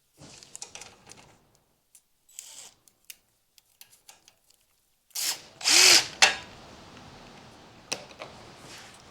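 Hand tools clicking and knocking on metal, then a loud burst of about a second from a power tool starting about five seconds in, followed by a faint steady hum.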